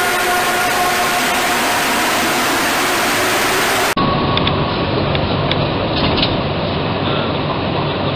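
A steady chord of several held tones over a hiss, cut off suddenly about four seconds in. It gives way to the steady low hum of a Bombardier MR-73 Montreal Metro train standing at a station platform, with a few light clicks.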